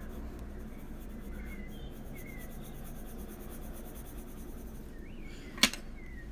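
Faber-Castell Polychromos colored pencil shading on coloring-book paper: a soft, steady scratching, with one sharp click near the end.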